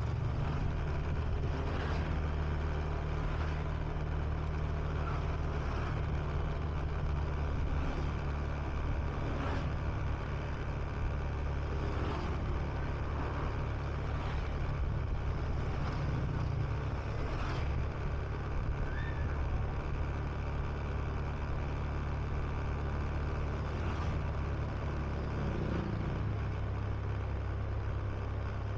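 Honda Beat scooter's single-cylinder engine running at a steady cruise, heard from the rider's seat as a steady low hum mixed with wind and road noise.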